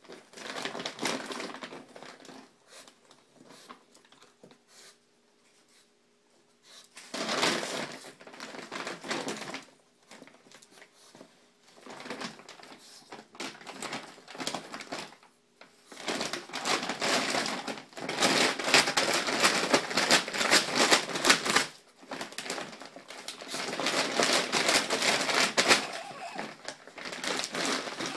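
Large plastic dog food bag crinkling and rustling as a pug digs its head inside it and shoves it across the floor. The rustling comes in several bouts with short pauses between, the longest and loudest in the middle.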